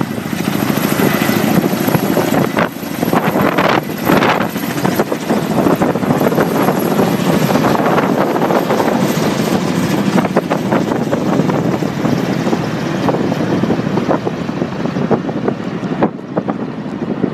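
Kamov Ka-32 coaxial-rotor helicopter flying overhead, its rotors and engines running, mixed with wind noise on the microphone; the sound thins a little near the end as it moves away.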